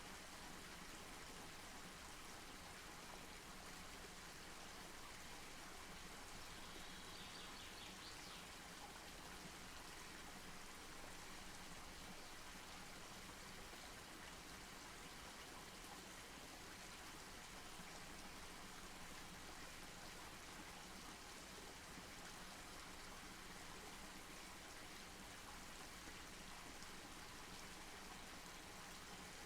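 Wood fire burning, a faint steady hiss and rustle with small scattered crackles.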